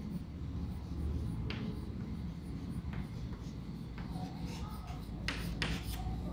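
Chalk writing on a blackboard: soft scratching strokes with a few sharp taps of the chalk, two of them close together near the end.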